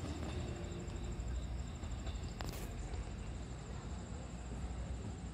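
Insects chirping in a steady, rapid high-pitched trill over a low rumble. One brief click comes about two and a half seconds in.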